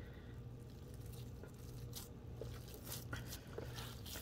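Soft, faint squishing and tearing of seitan dough as hands pull off a portion and squeeze it into shape on a floured wooden board, with scattered small ticks over a low steady hum.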